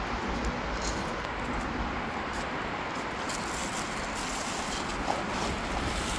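Steady outdoor background noise with a low rumble, like distant street traffic, and a few faint clicks.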